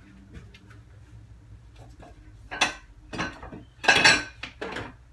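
A few sharp clinks and knocks of dishware or a container being handled and set down, starting about two and a half seconds in, the loudest about four seconds in.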